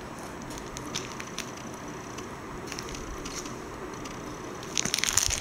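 Faint ticks of cards and plastic being handled, then a short run of crinkling clicks near the end as a plastic sleeve page of a card binder is turned.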